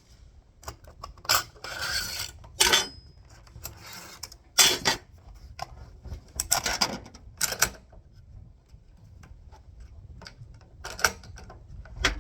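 Hands working on a rifle and its scope mount: irregular metallic clicks, clinks and short scrapes, with a few sharper knocks among them.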